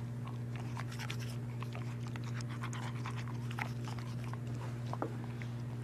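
A toothbrush with baking soda and peroxide paste scrubbing a dog's teeth in faint, irregular scratchy strokes, along with the dog's wet mouth and panting sounds. A steady low electrical hum runs underneath.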